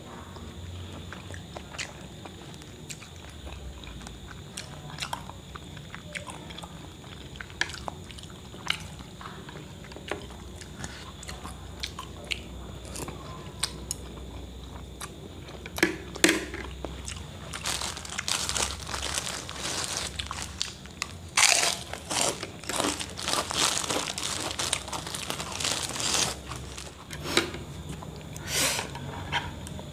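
A person eating chicken noodles close to the microphone: light clicks of chopsticks on the plate, slurping and chewing. Past the middle comes a louder run of crunching on crackers, with rustling of their plastic bag.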